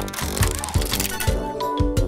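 Bouncy children's background music with a steady beat, with a short whoosh sound effect in the first second as a puzzle tile flips.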